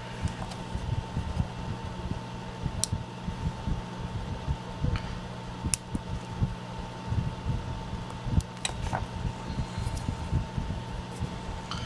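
Small scissors snipping a hardened embossing-powder (UTEE) casting, a few sharp clicks, over soft handling knocks of a silicone mold and fingers. A steady low hum with a thin high whine runs underneath.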